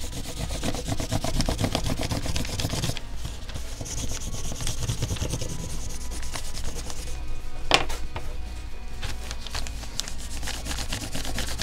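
Crayon scribbled rapidly back and forth over paper laid on leaves, making a leaf rubbing: a dense run of scratchy strokes. A single sharp knock comes about two-thirds of the way in.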